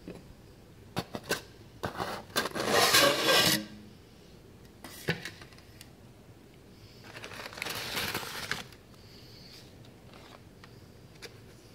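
Cardboard and styrofoam packing being handled. Several clicks and knocks come first, then a loud scraping rub from about two to three and a half seconds in. A softer rubbing follows near the middle of the stretch.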